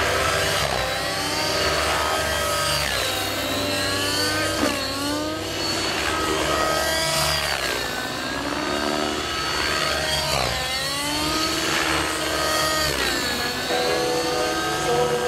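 Outrage Velocity 50 N2 nitro RC helicopter flying aerobatics: its glow engine and rotor blades buzz and whine, the pitch sweeping up and down again and again as the helicopter loads up and passes by.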